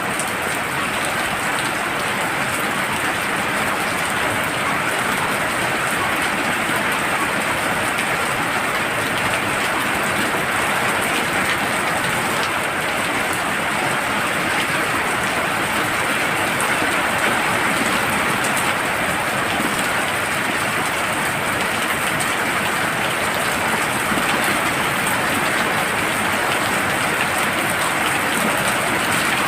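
Heavy rain falling steadily, an even unbroken hiss of drops.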